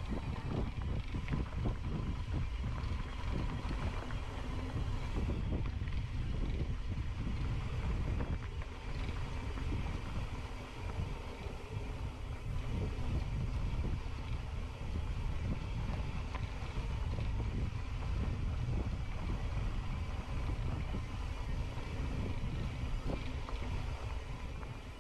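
Wind buffeting the microphone: a steady, unbroken low rumble with a fainter hiss above it.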